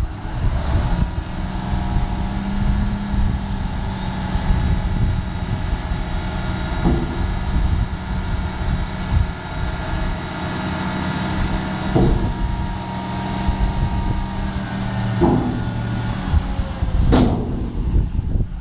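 John Deere tractor engine running steadily while driving the hydraulics that raise a Dooley dump trailer's tipping body, with a steady whine over a low rumble. Several sharp knocks come through as the body rises.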